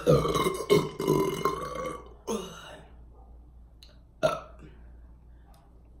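A woman's long, loud burp in a Coca-Cola burping challenge, ending about two seconds in, followed by a shorter burp and a brief sharp sound about four seconds in.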